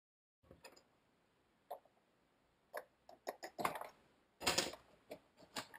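Plastic clips of a Toyota MR2 (SW20) instrument cluster's housing being unclipped and the case pulled apart by hand: an irregular string of clicks and knocks, with two longer plastic scraping rustles past the middle.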